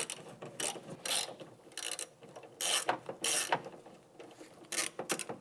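Socket ratchet clicking in short runs, about eight of them, as a 5/16-inch nut is backed off the door handle's mounting stud inside the truck door.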